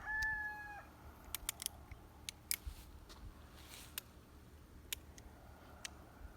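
The held final note of a rooster's crow, ending within the first second, followed by a scattering of faint, irregular clicks and taps.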